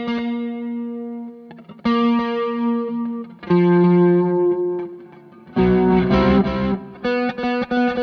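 Strat-style electric guitar played through a pedalboard with distortion: notes and chords struck and left to ring, a fresh one about two seconds in and a lower one at three and a half. A thicker, louder strummed chord comes about six seconds in, then quick repeated picking near the end.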